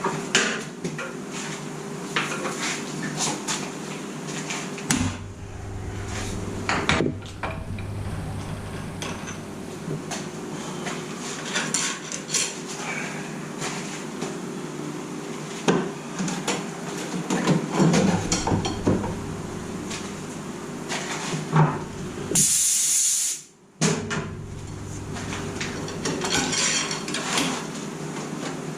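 Metal-on-metal knocks and tool clatter in a machine shop, as a hammer taps the cylinder head and tools are handled around the milling machine vise, over a steady low machine hum. About three quarters through there is a short hiss lasting about a second.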